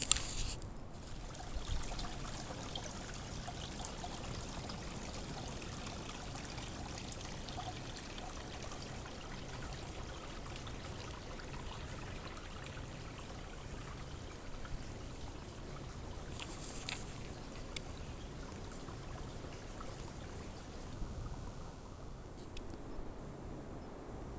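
A small stream trickling and splashing among rocks, a steady running-water noise, with a short sharp sound at the very start and another about three-quarters of the way through.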